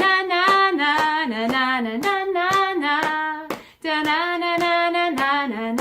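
A woman sings a quick "da-na-na-na" tune with sharp hand claps on the beat, about four a second. Both break off briefly a little past the middle, then start again.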